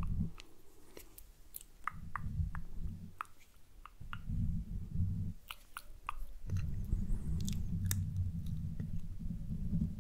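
Close-miked ASMR hand sounds on a Blue Yeti microphone: fingers rubbing and cupping over the grille make a muffled low rumble in several stretches, the longest from about six and a half seconds on. Scattered sharp clicks fall between the rumbles.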